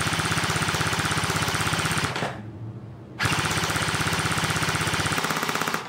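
KWA SR-10 electric airsoft rifle firing on full auto in two long bursts of about two and a half seconds each, about a second apart: a fast, even rattle of the gearbox cycling at about 20 rounds a second as the magazine is dumped.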